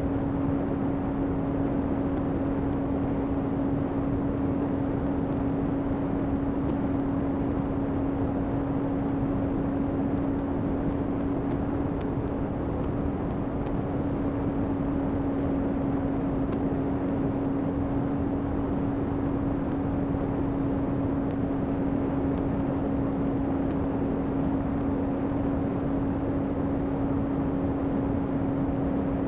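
Onboard sound of an FMS 800mm V-tail RC plane in flight: its electric motor and propeller hum at one steady pitch over a constant rush of air noise.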